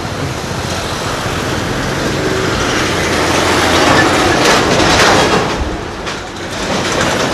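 Busy road traffic, with a heavy vehicle passing close by: a rumble that builds to its loudest about four to five seconds in, then eases off.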